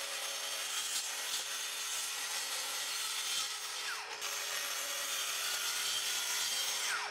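Bosch plunge track saw running along its guide rail, cutting through a sheet of 12mm MDF, with dust extraction attached. Steady cutting noise with a brief dip about four seconds in; near the end the pitch falls as the blade winds down.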